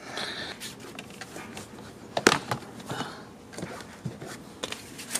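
Plastic door sill trim panel of a 3rd-gen Lexus IS being pulled up by hand off its retaining clips: one sharp click about two seconds in as a clip lets go, with fainter clicks and plastic rustling around it.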